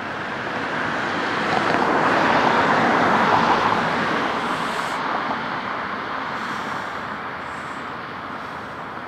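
A road vehicle passing by: an even rush of tyre and road noise that swells to its loudest about two to four seconds in, then slowly fades away.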